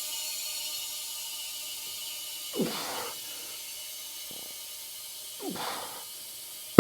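Compressed air hissing steadily into a new Pirelli Diablo Rosso tire on a 12-inch motorcycle rim while the bead is being seated. Twice the rubber gives a short creak that falls in pitch, and right at the end comes a sharp pop as the bead snaps onto the rim.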